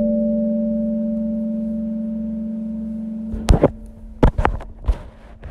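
A steel tongue drum note rings and slowly fades, then stops short about three and a half seconds in, followed by a handful of sharp knocks and clicks.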